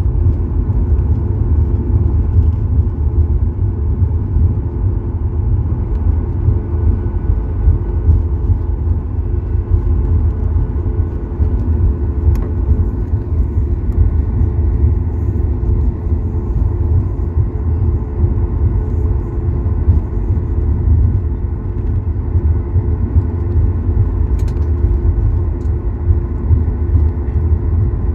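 Cabin noise of a Boeing 737 MAX 8-200 taxiing, heard from a window seat: a steady low rumble with the CFM LEAP-1B engines' even hum at low taxi thrust, not rising.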